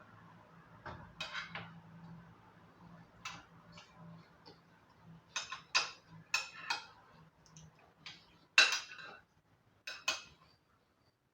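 Cutlery clinking and scraping against a dish of pasta while eating, in short irregular strokes. The loudest clink comes a little past the middle.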